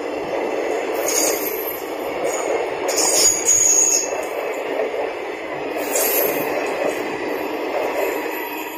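Indian Railways passenger coaches rolling past at speed: a steady rumble and clatter of wheels on rail, with brief high metallic rings about a second in, around three to four seconds and about six seconds in. The sound fades near the end as the tail of the train goes by.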